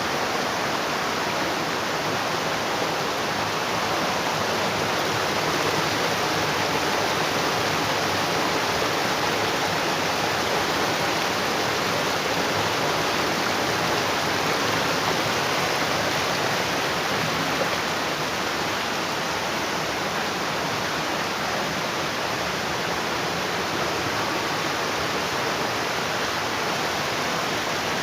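Waterfall: a steady, loud rush of falling and flowing water, dipping slightly in level about two-thirds of the way through.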